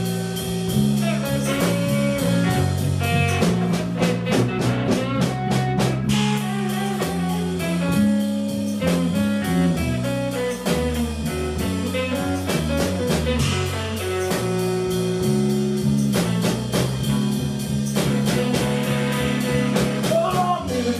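Band playing a slow blues instrumental passage: guitar lead lines with bent notes over bass guitar and a drum kit keeping a steady beat.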